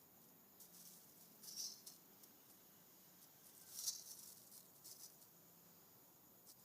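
Faint crinkling and rustling of plastic as a kitten plays with it, in a few short flurries, the loudest around four seconds in, over near silence.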